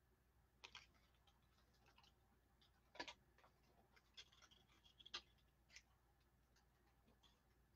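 Near silence broken by a few faint, scattered clicks and light taps of small hard objects being handled. The sharpest come about three and five seconds in.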